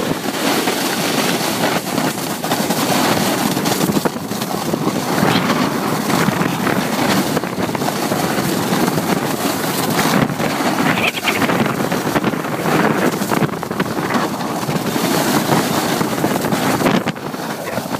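Wind rushing over the microphone and a snowboard sliding and scraping over packed snow on a fast downhill run, a steady loud rush that swells and dips.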